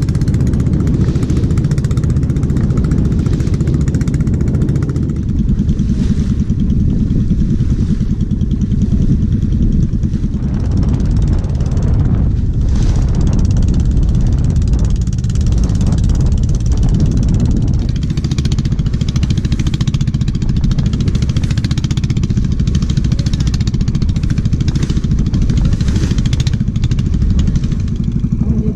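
Small wooden boat's engine running steadily under way, a dense low rumble, with water rushing and splashing along the hull.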